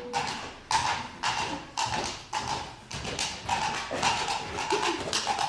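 Clip-clop clicks imitating a horse's hooves, about two a second, made as a stage sound effect.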